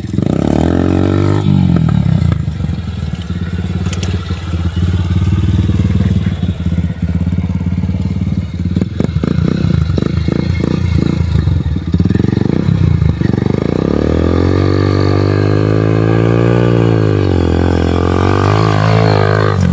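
Mini dirt bike's 150 cc single-cylinder four-stroke Honda Bros engine, breathing through a newly fitted sport exhaust tip, loud as it is ridden: revving up about a second in, choppy on-off throttle through the middle, then a long smooth climb and fall in revs, and another rev near the end.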